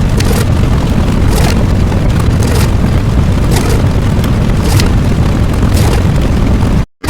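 Loud, continuous booming rumble with a sharper burst about once a second, cutting out abruptly just before the end.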